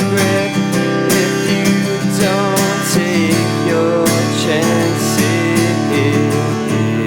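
Instrumental passage of an acoustic indie rock song: a strummed acoustic guitar keeps a steady rhythm while a wavering, pitch-bending melody line plays over it.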